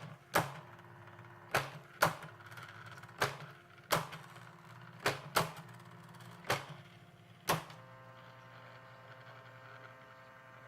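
CasioWriter CW-10 electronic typewriter printing by itself in its factory demo mode: about nine sharp clacks of the print mechanism at uneven intervals over a steady motor hum, the clacks stopping about seven and a half seconds in while the hum goes on.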